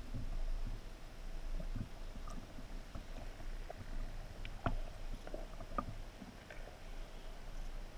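Muffled underwater sound picked up through a camera's waterproof housing: a low, uneven rumble of moving water with scattered sharp clicks, the strongest one about halfway through.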